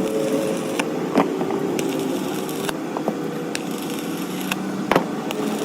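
A steady mechanical drone with scattered sharp taps and knocks, about one every half second to second, the loudest near the end.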